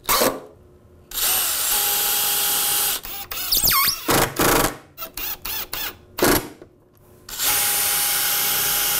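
Cordless drill driving screws up into an MDF tabletop from underneath, in two steady runs of about two seconds each: one about a second in and one near the end. Short clicks and knocks from handling the drill and screws come between the runs.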